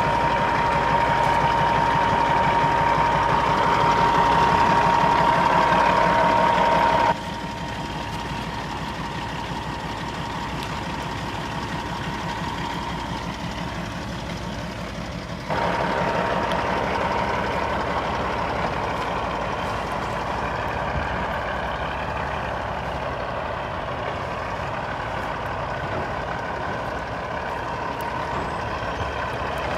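Heavy diesel machinery running steadily, with a continuous high tone over the engine. The sound drops abruptly about seven seconds in and comes back as abruptly about eight seconds later.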